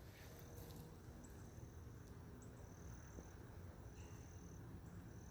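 Faint, high, thin insect trills, each held for about a second and coming again every second or so, over a low outdoor rumble.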